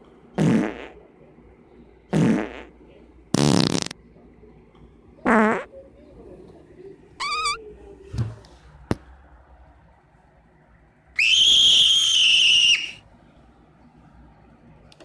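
A string of short fart noises, about six, one every second or two, several with a wobbling pitch. Near the end comes one longer, high-pitched one lasting about a second and a half.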